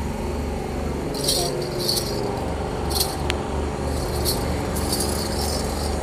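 Metal anklets on a calf's legs jingling in short clusters as it shifts and steps, over a steady low mechanical hum.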